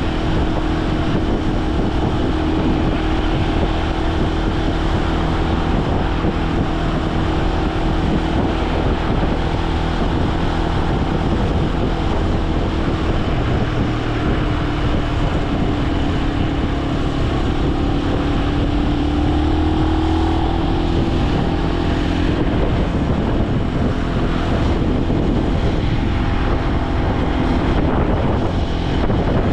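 Benelli BN125's 125 cc single-cylinder engine running at steady cruising revs, with wind rushing over the microphone. The engine note dips a little and climbs back a little after halfway through.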